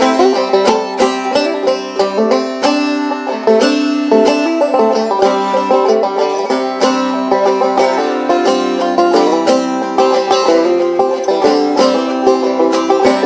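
Instrumental bluegrass band music, with a banjo picking fast, even runs of notes over a plucked-string backing.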